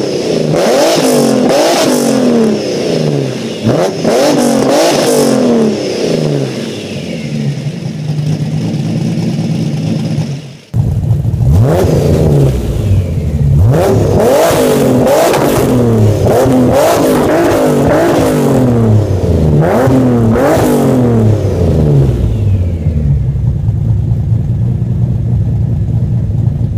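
Pontiac Firebird's cammed 3.8-litre V6, breathing through headers and a Borla XR1 true-dual exhaust with an H-pipe, revved in repeated throttle blips that rise and fall back to idle. About eleven seconds in the sound breaks off and the revving starts again, then it settles into a steady, lumpy cammed idle near the end.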